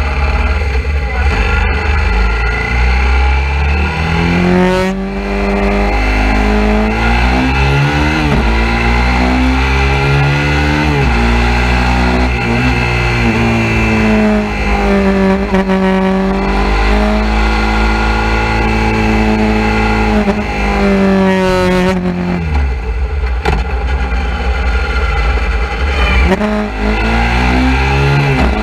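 Suzuki V-Strom 650's V-twin engine running under way, its pitch rising and falling repeatedly with the revs as the bike accelerates and changes speed, over a steady low rumble.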